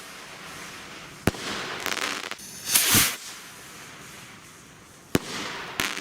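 Consumer fireworks going off. There are sharp bangs about a second in and again near the end, with a hissing, crackling burst in the middle.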